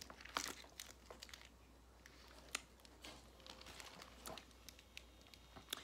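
Near silence with a few faint, scattered clicks and soft crinkles of candy wrappers being handled.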